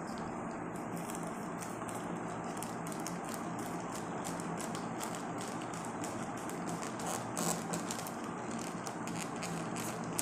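Scissors cutting open a plastic courier mailer bag: many small snips and clicks with light crinkling of the plastic, over a steady faint background hum.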